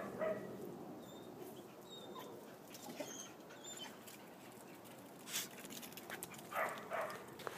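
A dog whimpering in short whines, once near the start and again a couple of times near the end.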